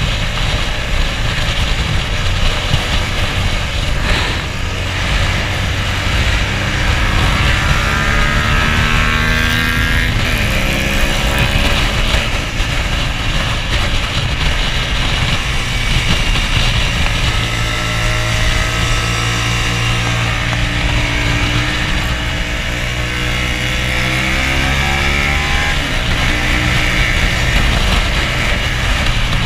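Hyosung sport bike's V-twin engine at racing revs, heard from the rider's chest over heavy wind rush, its pitch climbing through the gears and dropping between runs.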